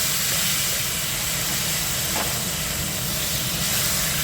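Lemon-marinated chicken sizzling in a hot nonstick kadai with almost no oil: a steady hiss.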